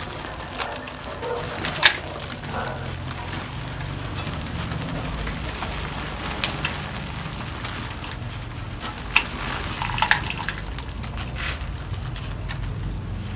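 Soil being scratched and broken away from a bonsai root ball, a crumbly, crackling scraping with a few sharp knocks, over a steady low hum.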